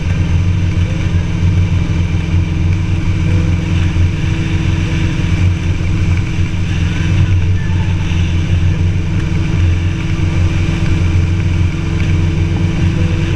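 Sidecar motorcycle riding along at a steady cruise, its engine running evenly.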